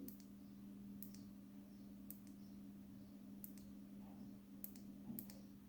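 Faint clicks of a Klarus E5 Plus flashlight's power button being pressed about six times, each a quick press-and-release, as the light is cycled through its modes, over a steady low hum.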